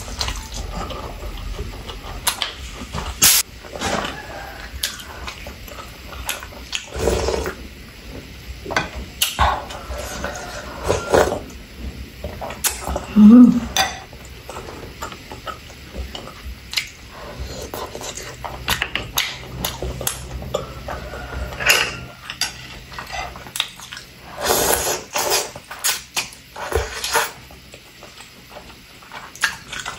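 Close-miked eating sounds: wet chewing and mouth smacks, with chopsticks and a spoon clicking against ceramic bowls and plates in short, irregular clinks. Noodles are slurped near the end, and a brief low hum-like sound about halfway through is the loudest moment.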